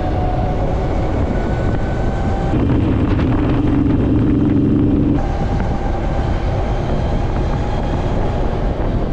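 Harley-Davidson LiveWire electric motorcycle riding at speed: loud wind and road rush with a steady high whine from the electric motor. For a couple of seconds in the middle, a louder, lower steady hum takes over, then the wind and whine return.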